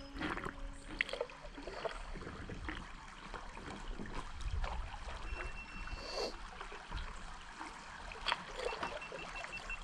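Small irregular splashes and trickling water from paddling a stand-up paddleboard on a river.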